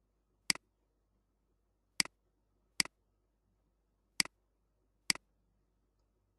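Computer mouse button clicked five times at uneven intervals; each click is a quick double snap.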